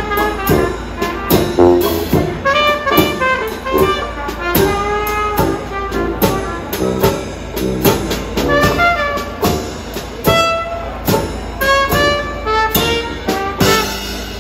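A small trad-jazz band playing: trumpet lead over sousaphone, banjo and drum kit, with a steady beat.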